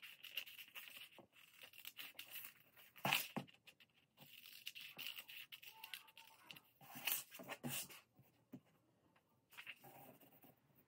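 Scissors cutting through paper: quiet, irregular snips with paper rustling, a little stronger a few seconds in and again past the middle.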